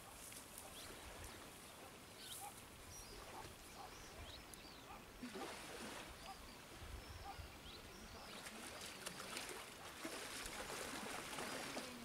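Faint sea water splashing and lapping, growing louder about eight seconds in, with short high chirps scattered throughout.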